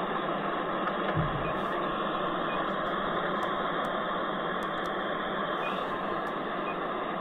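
Electronic refrigerant leak detector ticking with short, even beeps about once a second as it is swept along an evaporator coil, over steady background noise; a low bump comes about a second in.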